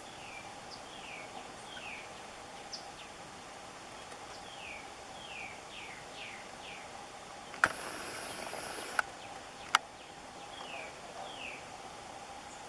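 Small birds chirping over and over in short, falling chirps, over a steady faint hum. About halfway through, a sudden loud rushing hiss lasts about a second and a half and ends in a sharp click, and a second sharp click follows.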